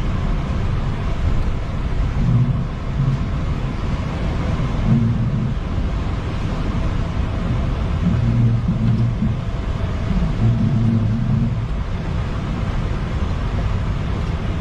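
Boeing 737 on its takeoff roll, heard from the cockpit: a steady, loud low rumble of engines and wheels on the runway, swelling a few times.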